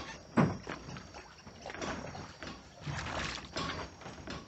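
Water splashing and sloshing in short bursts as soaked cracked-corn grits are tipped into the water, with a sharp knock about half a second in.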